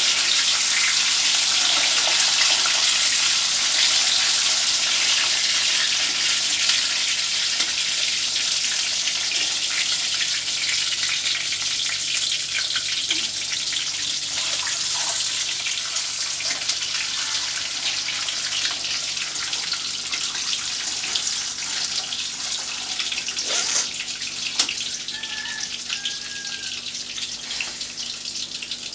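Peeled boiled eggs frying in hot oil in a karahi: a steady sizzle with dense crackling that slowly dies down, with a sharper pop or two near the end.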